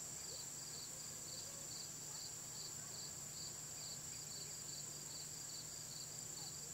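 Insects calling: a steady high-pitched trill with a second insect chirping rhythmically about twice a second, typical of crickets and katydids.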